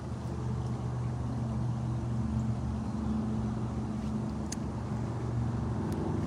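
A steady low mechanical drone, like a motor running, with a tone that wavers slightly in pitch.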